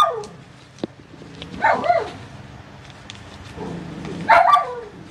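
A dog barking twice, about two seconds and four and a half seconds in, each a short call that falls in pitch.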